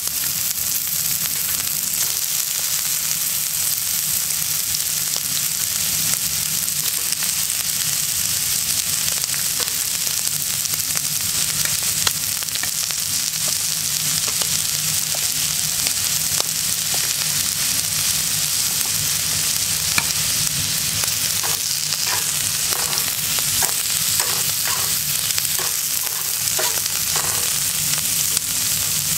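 Shrimp frying in a hot steel frying pan: a steady sizzling hiss, with light clicks and taps scattered through the later part.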